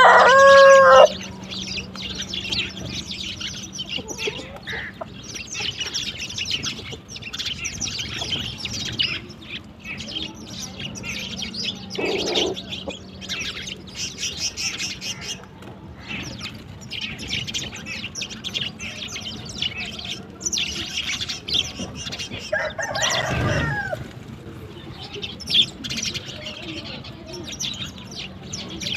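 A flock of sparrows chirping busily and continuously. A rooster's crow ends about a second in, and a second, falling fowl call comes about two-thirds of the way through.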